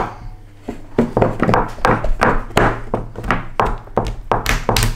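A metal spoon knocked repeatedly on a wooden tabletop, a quick uneven run of thunks at about four a second.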